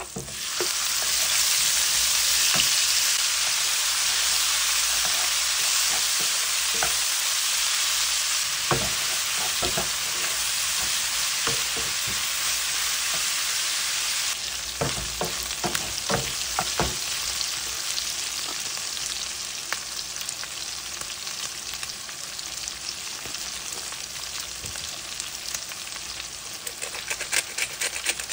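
Diced raw pork dropped into hot oil with garlic in a frying pan, sizzling loudly as it goes in and then settling to a steadier sizzle, with knocks of a wooden spatula stirring against the pan. Near the end a pepper grinder is twisted over it, a fast dry ticking.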